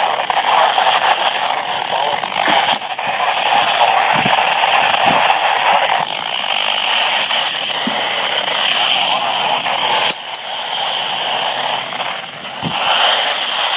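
Radio static: a steady hiss from a radio receiver, with scattered crackles and pops. It drops for a moment about ten seconds in and again near the end.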